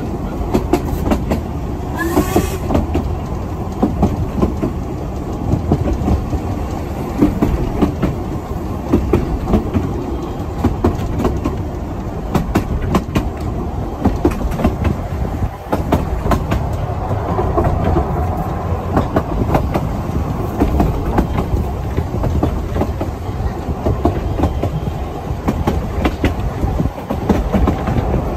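Narrow-gauge train running along the track: a steady rumble with rapid clicking of the wheels over the rails, and a brief rising tone about two seconds in.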